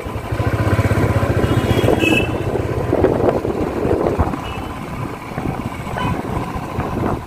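A motor vehicle engine running steadily, with a low throb, amid busy street traffic.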